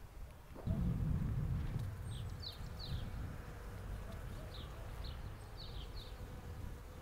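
Bees buzzing at fruit-tree blossom, a steady low hum that starts about half a second in. Short high bird chirps sound over it.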